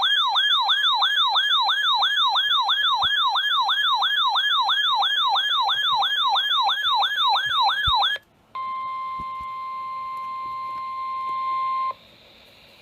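Electronic weather-alert siren, a rapid falling whoop repeating about three times a second for about eight seconds. After a brief gap comes a steady single-pitched alarm tone, the NOAA Weather Radio 1050 Hz warning alarm tone that precedes a warning broadcast, for about three seconds. It then cuts off.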